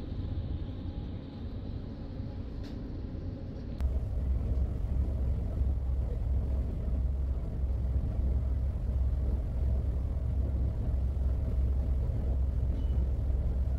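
Ferry's engine running with a steady low rumble, heard from the deck; it steps up in loudness about four seconds in.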